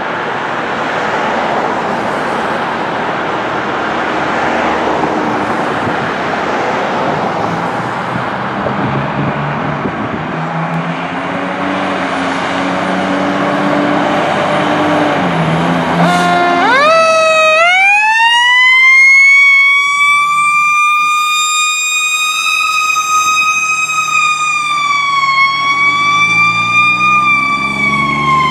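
A fire rescue engine running and revving as it pulls out. About halfway through its siren winds up to a high wail, holds with a slight dip, and starts to wind down near the end.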